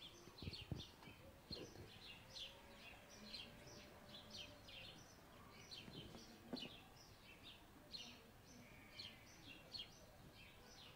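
Faint chirping of small birds: many short, high chirps at an irregular pace, over quiet room tone.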